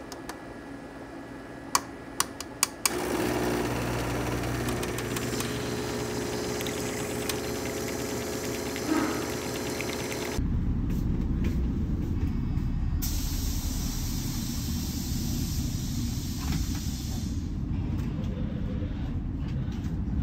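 Four sharp knocks on an automatic espresso machine, hit to get it going, then the machine runs with a steady hum as espresso pours from both spouts over ice. About ten seconds in this gives way to a louder, steady low vehicle rumble.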